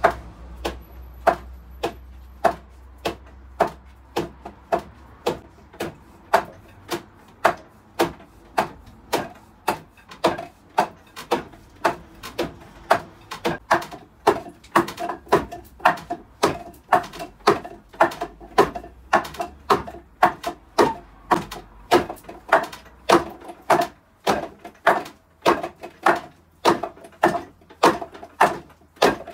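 Hands and forearms striking the wooden arms of a Wing Chun wooden dummy during hand drills: sharp wooden knocks in a steady rhythm, about two a second.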